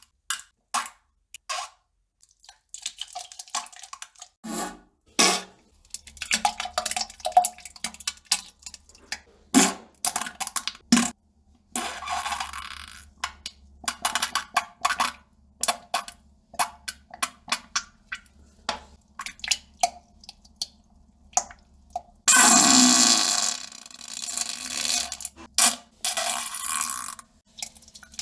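Toilet sounds of a person defecating: a long irregular run of short clicks, drips and small plops into water over a faint low hum. About 22 seconds in comes a longer, loud noisy burst lasting about two seconds.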